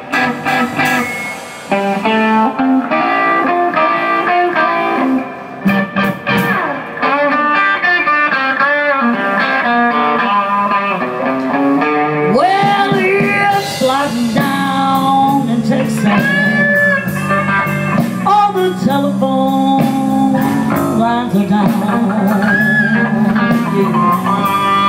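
Slow blues played on electric guitar with a band: the lead guitar plays bent, sliding lines over a steady backing. This is the instrumental opening before the vocals come in.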